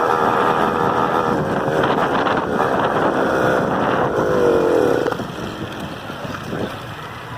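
Honda CG 125 single-cylinder four-stroke engine running under way with wind on the microphone. Its note falls about four and a half seconds in as the throttle is rolled off, and it is quieter after that.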